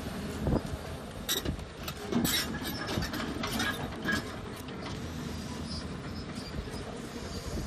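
Volvo hydraulic excavator's diesel engine running steadily as it swings its empty bucket and lowers the boom, with a run of metallic clanks and rattles from the machine in the first half.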